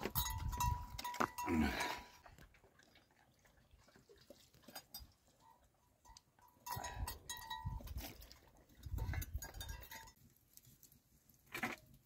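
Sheep bleating: several calls, loudest in the first couple of seconds and again twice later on, with quiet gaps between.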